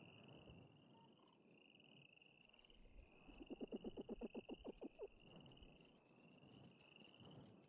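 Arctic fox giving a rapid chattering call of about ten pulses a second for nearly two seconds, midway through, over a faint, steady high trill.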